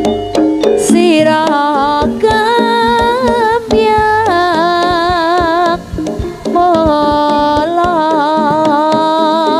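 Live Javanese jaranan gamelan music: hand-drum strokes and struck metal tones, then from about a second in a wavering lead melody with vibrato carried over the drum beat.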